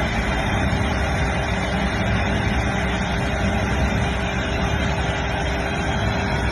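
Machinery running steadily: an even, continuous noise with a constant hum.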